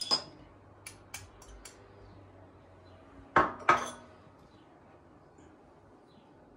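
Kitchen dishes and utensils clinking: a few light clicks, then two loud, sharp clinks in quick succession about three and a half seconds in, each ringing briefly.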